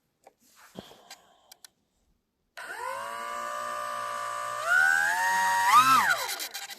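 Small electric motor and propeller of an E-flite UMX Timber X run up on the ground while the plane is checked for a suspected fault. A steady whine starts suddenly about two and a half seconds in, then steps up in pitch and loudness. Near the end it rises once more and winds down.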